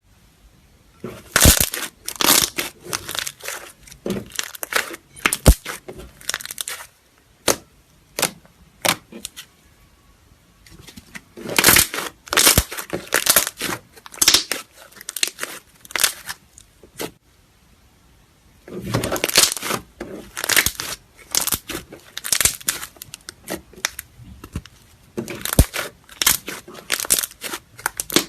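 Slime being squished and worked, giving clusters of sharp crackles and pops, with a couple of short pauses between bouts.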